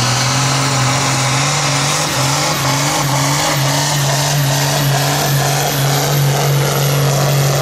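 IHC 1455 XL tractor's six-cylinder diesel running flat out at a steady pitch as it hauls a tractor-pulling sled. A high whistle wavers above the engine.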